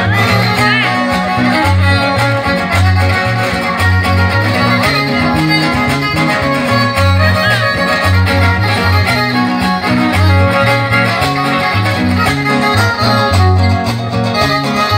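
A trío huasteco playing an instrumental passage live. The violin carries a wavering melody over strummed jarana and huapanguera, with the huapanguera's bass notes alternating in a steady rhythm.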